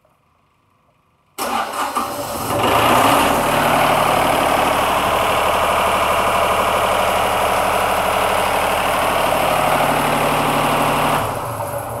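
The 35-horsepower Yanmar diesel engine on a Wood-Mizer LT40 Super Hydraulic sawmill is started with the key, catching almost at once about a second and a half in, then running steadily with the blade disengaged. Its sound drops away near the end.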